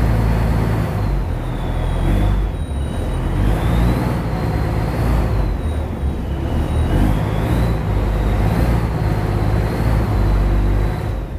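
Boat engine running steadily, a deep rumble with a thin high whine that slowly wavers in pitch.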